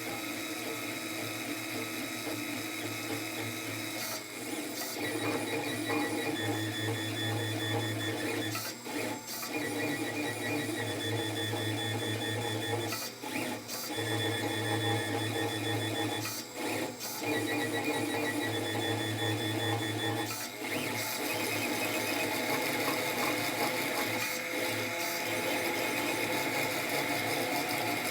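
Monoprice Select Mini 3D printer running a print: its stepper motors whine in several held tones that shift with each move, with short breaks every few seconds.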